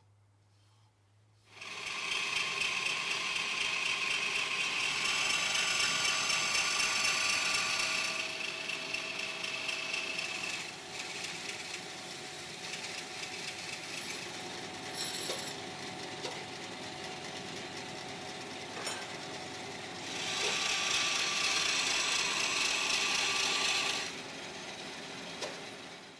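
A power tool starts about a second and a half in and runs steadily with a whine, growing louder for two long stretches (as if under load) and quieter between them, before stopping near the end.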